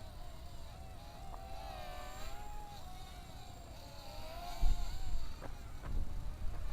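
Hubsan X4 H107L micro quadcopter's motors and propellers whining, several pitches wavering up and down as the motors fight gusty wind. Wind buffets the microphone with a low rumble from about halfway through.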